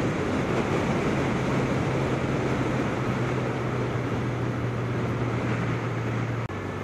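Motorcycle engine running at a steady cruise, with wind and road noise rushing over the rider's microphone. Near the end the engine note drops suddenly to a slightly lower pitch.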